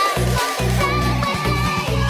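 Electronic dance music with a pulsing bass beat.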